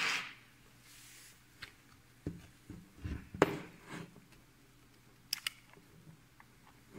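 Handling noise from an opened cordless drill/screwdriver: the bare plastic housing and parts knock and click as it is picked up and turned in the hand. The loudest knocks come in a cluster midway, and two sharp clicks follow shortly after. The motor does not run.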